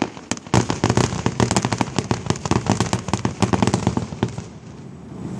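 Fireworks crackling: a dense, rapid run of sharp cracks and pops, several a second, that thins out about four seconds in.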